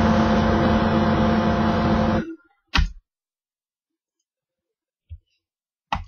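A steady buzzing hum with hiss, which cuts off abruptly about two seconds in; a brief burst of the same noise follows just before three seconds, then a faint click near the end.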